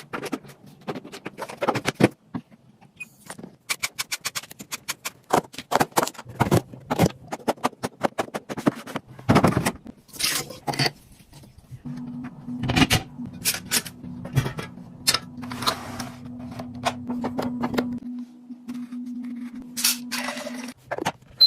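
Kitchen gadgets being handled: a run of sharp clicks, taps and scrapes. About halfway in, a steady low hum like a small appliance motor starts and stops shortly before the end.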